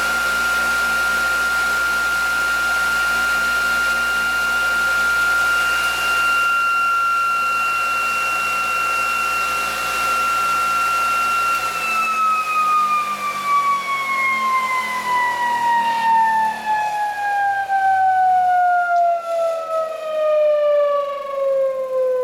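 Electric-motor-driven ReGenX generator rig running with a steady high whine over a low hum. About twelve seconds in the hum cuts out and the whine falls steadily in pitch as the machine, its drive switched off, coasts down.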